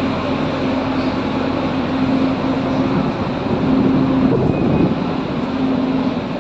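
Steady drone of a large car ferry's machinery with a constant low hum, mixed with wind buffeting the microphone on the open deck.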